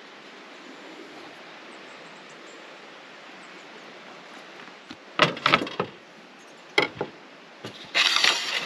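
A metal spoon handling cream at a camp bench: after a few seconds of faint steady outdoor hiss, a quick cluster of sharp knocks and clinks, two more a little later, and a short scraping rustle near the end as the spoon works in the cream tub and on the plate.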